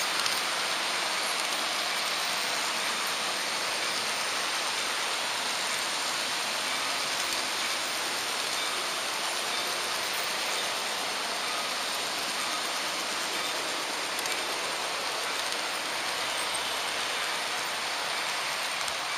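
Märklin HO model train running along the track, heard from a camera riding on it: a steady, even rushing hiss of the wheels and running gear on the rails.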